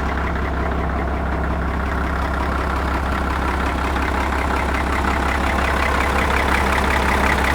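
Caterpillar D6 crawler tractor's diesel engine idling steadily, getting a little louder near the end.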